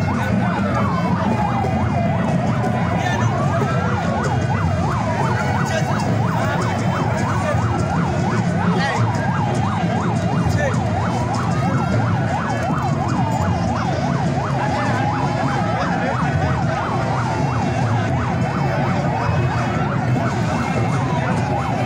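Siren wailing, its pitch sweeping up and back down about every four seconds, over the steady noise of a crowd.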